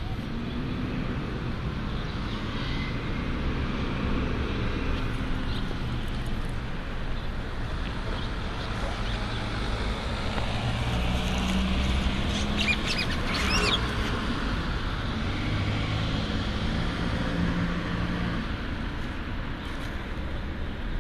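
Street traffic: cars running past in a steady low rumble. About twelve seconds in, a bird chirps a few times.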